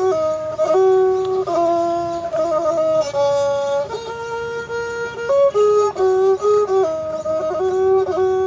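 Thai pi, a reed pipe, playing a solo melody: a single line moving between held notes, with quick trilled ornaments about two to three seconds in.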